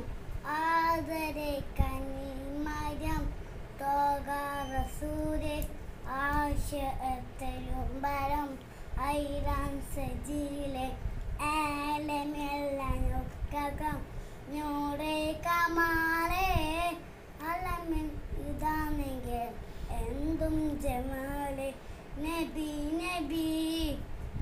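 A young boy singing solo, a melody in phrases of a second or two with short breaths between.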